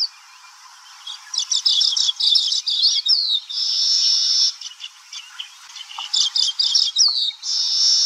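Weaver birds singing at their nest colony: two runs of quick chattering chirps, each ending in a long buzzy wheeze about a second long.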